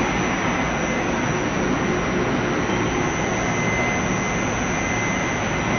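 Heavy machinery running steadily: a loud, even rush of noise with a faint high whine in it.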